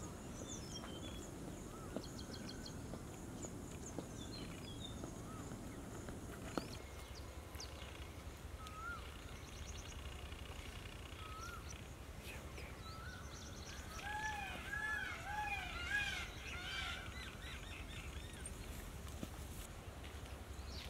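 Faint outdoor ambience with scattered bird calls, and a quick series of repeated arching bird notes about two-thirds of the way through.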